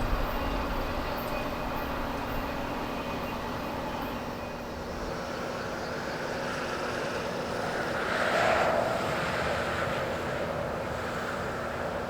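Train rumbling, the low rumble fading over the first few seconds as it moves away, with a brief swell of noise about eight seconds in.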